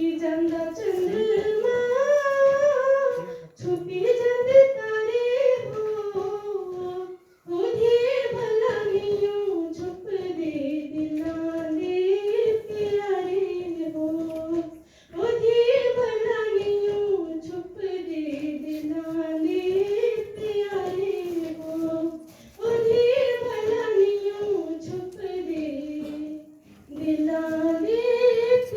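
A girl singing a Pahadi folk song solo, a single melodic voice in long wavering phrases with short pauses for breath between them.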